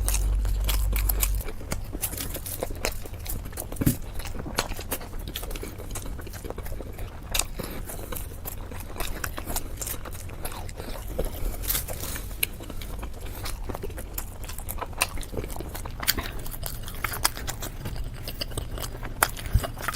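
A person chewing and biting into momo dumplings, with many small irregular wet mouth clicks and smacks. A low hum underneath stops about a second and a half in.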